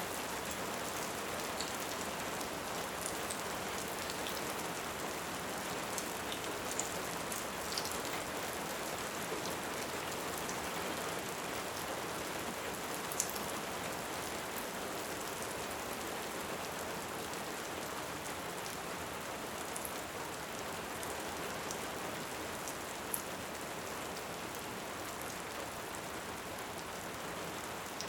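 Steady rain, with a few sharp crackles scattered over it.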